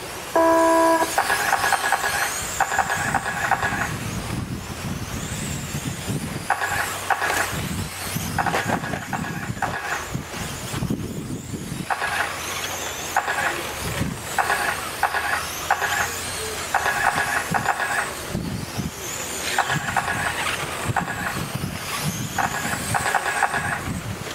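An RC car race starting: a loud electronic start tone about half a second in, then the high whine of the radio-controlled cars' motors rising and falling as they lap a dirt oval. Repeated bursts of electronic beeping from the timing system run through it.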